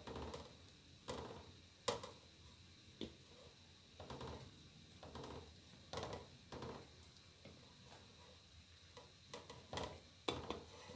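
Wooden spatula stirring coconut milk and dough balls in an aluminium pan: irregular scrapes with sharp knocks against the metal about once a second, the loudest about two seconds in and near the end.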